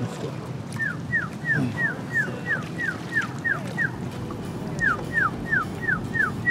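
A person's whistled call to summon crocodiles: short, squeaky notes that each fall in pitch, about three a second, in runs with a short pause partway through.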